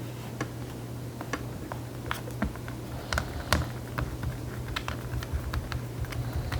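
Fingers pressing and tapping along a laptop's plastic base as a rubber foot strip is pushed into place: a run of irregular sharp clicks, much like typing, over a steady low hum.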